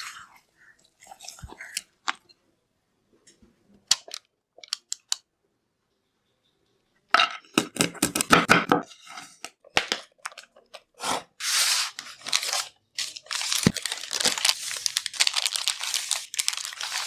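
Crinkling and tearing of packaging, with crunching: scattered small clicks at first, then from about seven seconds in a burst of rapid crackling strokes, turning into near-continuous rustling and crackling.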